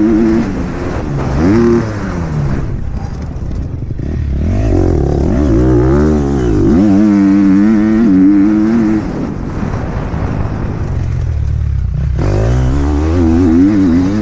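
Motocross dirt bike engine heard from on the bike, revving up and down with the throttle, its pitch climbing and dropping repeatedly. It eases off twice, near the start and again past the middle.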